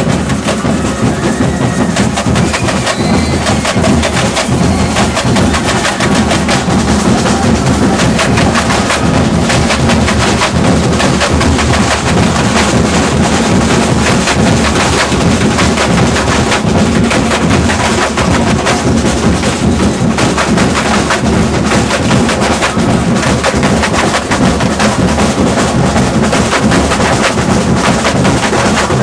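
Samba school drum section (batucada) playing live: surdo bass drums and other drums beaten together in a dense, steady rhythm, loud throughout.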